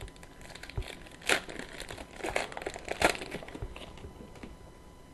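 Crinkling and rustling of trading-card packaging as hockey cards are handled, in a few irregular crackles, the loudest in the middle.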